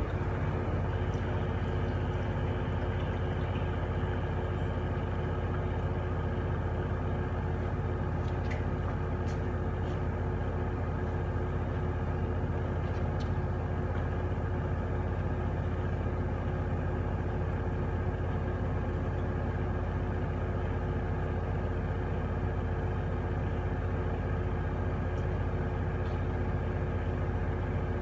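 Gorenje WA73161 washing machine with a brushless inverter motor running at a steady speed during a test wash: a constant low hum with a steady whine above it, unchanged throughout.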